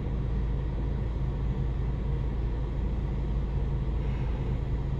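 Steady low hum of a car cabin with the engine running, an even rumble with a constant low drone.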